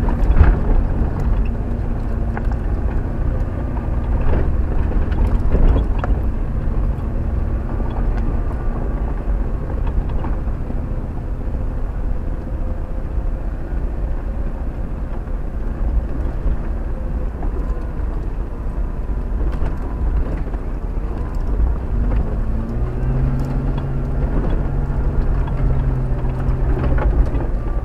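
Jeep Wrangler engine running at low speed as it crawls up a rough dirt trail, a steady low rumble heard from inside the cab. A few knocks and rattles come about four to six seconds in, and the engine note grows louder for a few seconds near the end as the climb steepens.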